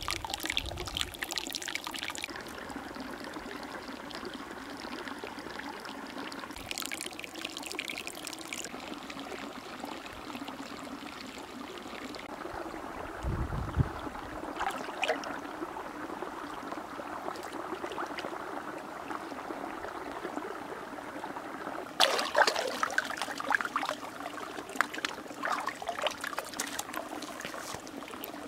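Water trickling and splashing steadily at the rim of a natural hot spring soaking pool, with louder spells of splashing at the start and again for the last several seconds.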